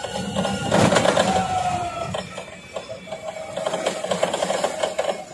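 A motor running steadily, a hum with a fast rhythmic chatter, with a brief loud knock about a second in.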